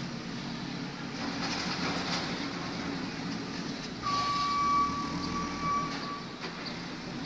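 Heavy earth-moving machine's diesel engine running with a steady low rumble and clatter. About four seconds in, a steady high-pitched tone sounds for nearly two seconds.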